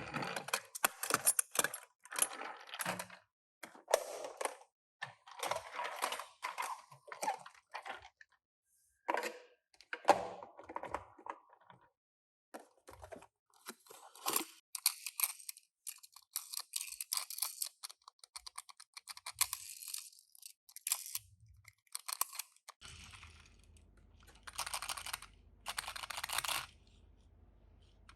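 Toy packaging being handled and opened: irregular bursts of crinkling and rustling with short pauses between them. A faint low hum comes in near the end.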